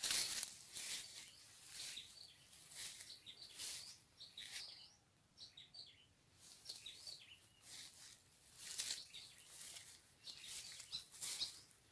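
Small birds chirping, among irregular bursts of rustling.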